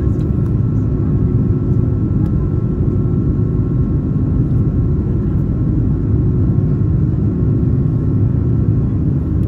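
Airliner's engines heard from inside the cabin: a loud, steady rumble with a steady hum running through it.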